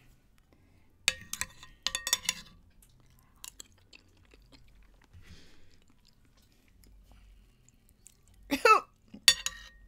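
Metal spoon clinking against the plate and plastic Jell-O cups as spicy Jell-O is scooped, with soft chewing and mouth sounds in between. About 8.5 seconds in there is a short voiced reaction, like a groan or cough, to the heat of the sauce.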